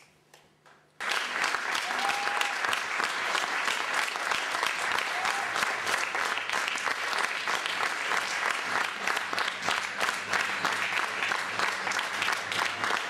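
Audience applauding, starting abruptly about a second in after a moment of near silence, then dense, steady clapping.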